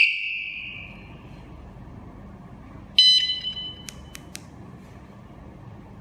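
KS-SF22R vehicle security alarm beeping during its remote-erasing procedure. A loud beep dies away at the start, and a shorter, fainter beep sounds about three seconds in. Within a second of it come three sharp clicks.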